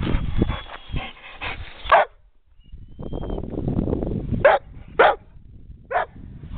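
Brindle pit bull mix giving four short barks: one about two seconds in, then three in quick succession near the end, over a low rumbling noise.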